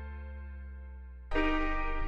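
Background music: a sustained keyboard chord slowly fading, then a new chord struck about a second and a half in, over a steady bass.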